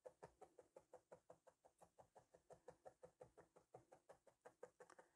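A single 40-gauge spiral felting needle jabbing into wool on a felting pad in faint, quick, even taps, about six a second, tacking stray fibres in at the edge of the shape.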